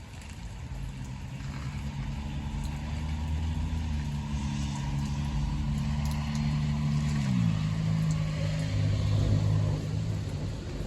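A motor vehicle's engine drones steadily and gradually grows louder. Its pitch drops about seven seconds in.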